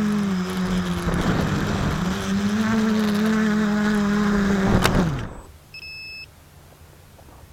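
Quadcopter's electric motors and propellers whining steadily, the pitch dipping and recovering, then a sharp click and the whine falls away and stops about five seconds in. A short electronic beep follows about a second later.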